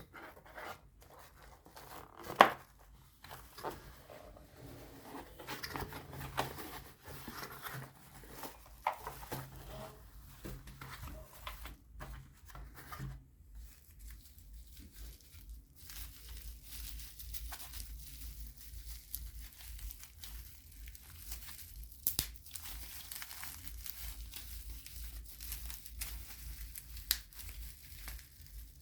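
Keyboard packaging being opened by hand: wrapping crinkling and tearing, with one sharp loud click about two seconds in and a few fainter clicks later.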